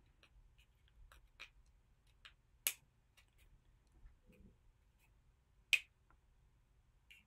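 Small plastic accessory pieces clicking and ticking as they are handled and pushed together, peg into hole: scattered light ticks with two sharper clicks about three seconds apart.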